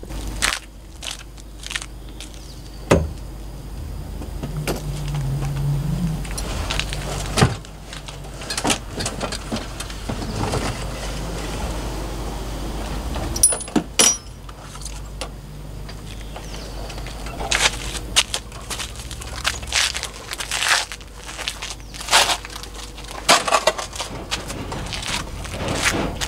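Scattered clanks, clicks and rattles of hand work on a semi-truck seat and its mounting hardware, over a steady low rumble.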